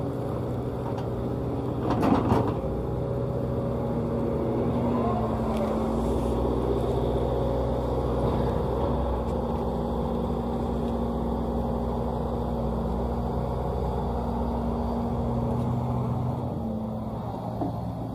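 Excavator diesel engine running steadily. About two seconds in comes a loud thud and clatter as a bucketload of clay is dumped into the steel bed of a dump truck.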